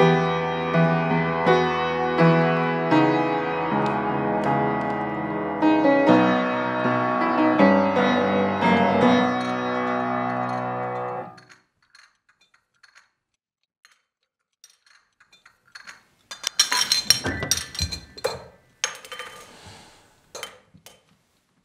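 A piano playing a slow melody with chords that stops about halfway through. After a few seconds of near silence comes a cluster of small sharp clicks and knocks.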